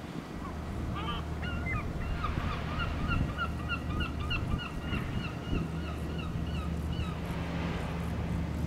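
A bird calling in a quick run of short, repeated notes, about three or four a second for several seconds, then stopping. Under it is a steady low machinery hum.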